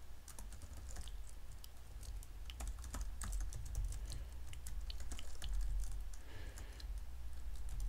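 Computer keyboard being typed on in short irregular runs of keystroke clicks, over a low steady hum.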